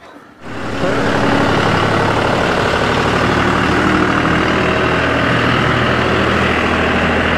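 John Deere utility tractor's diesel engine running steadily as the tractor drives past with a load of dirt in its front loader; the engine sound comes in abruptly about half a second in.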